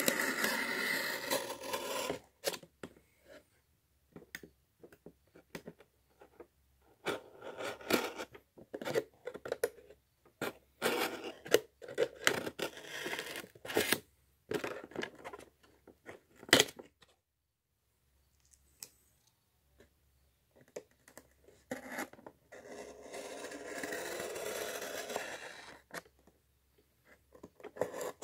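A blade cutting a door opening through the wall of a model building: irregular scraping, slicing strokes, with a pause partway through and a longer steady scrape near the end.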